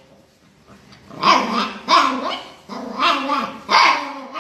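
A dog barking and grumbling: four loud, drawn-out barks about a second apart, after a short quiet start.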